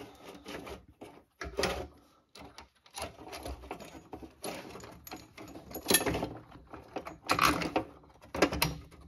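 Steel lifting chain links clinking and rattling irregularly as they are handled and positioned, with a few louder clanks of metal on metal.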